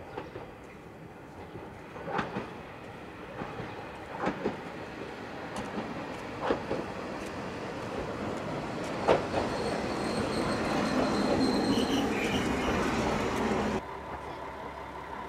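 KiHa 40-series diesel railcar approaching on jointed track: its wheels clack over the rail joints in pairs every couple of seconds while the engine and running noise grow louder. The sound cuts off abruptly near the end, leaving a quieter background.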